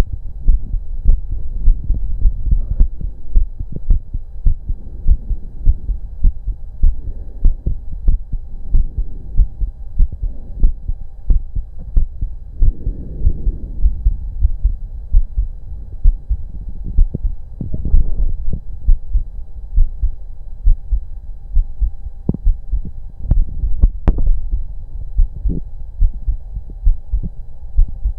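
A human heartbeat heard through a stethoscope on the chest: steady low thumps, roughly one a second. A few sharp clicks come near the end.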